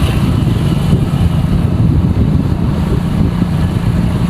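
Motor vehicle engine running steadily, heard from on board, with a continuous low rumble.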